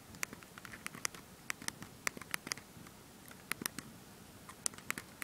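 Keys of a BlackBerry Curve's QWERTY keyboard clicking as a text message is typed: irregular sharp clicks, a few a second, with short pauses between bursts.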